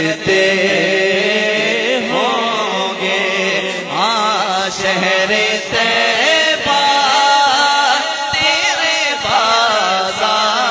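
A male naat reciter singing Urdu devotional verse in long, ornamented held notes whose pitch glides and turns, over a steady low drone.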